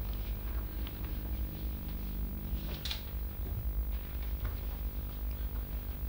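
Steady low mains hum and hiss of an old television soundtrack, with one faint short sound about three seconds in.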